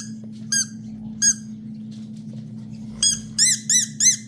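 Squeaky toy football being chewed by a husky: short squeaks that rise and fall in pitch, two spaced about a second apart, then a quick run of four near the end.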